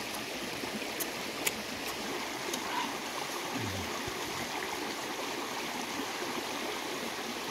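Steady rushing of a stream flowing over rocks. A few sharp clicks come in the first three seconds, and a short low hum of a voice just before four seconds in.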